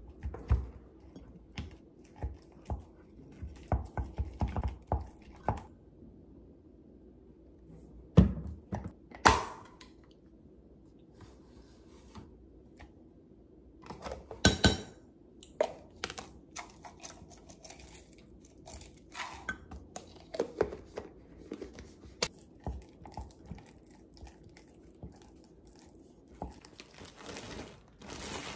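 Wooden spatula mashing and stirring squash with yogurt in a glass measuring cup, giving irregular knocks, taps and scrapes against the glass. A metal spoon clinks against the cup about halfway through, and a plastic bread bag crinkles near the end.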